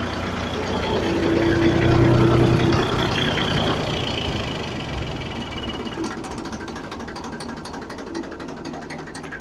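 Small tractor engine running and driving a homemade potato harvester's chain transporter through the PTO shaft. The engine grows louder to a peak about two seconds in, then eases off and quietens, leaving a quick rattling clatter from the machinery.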